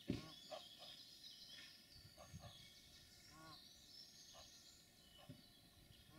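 Faint, high-pitched peeping of Egyptian goose goslings, with a few short lower calls scattered through, over quiet outdoor background. A brief low thump comes right at the start.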